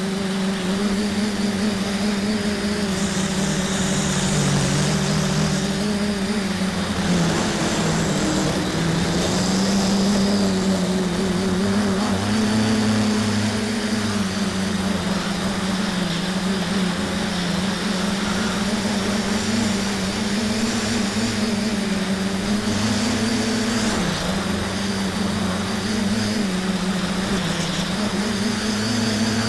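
Multicopter's electric motors and propellers heard from on board in flight: a steady buzzing hum whose pitch wavers up and down as the motor speed changes.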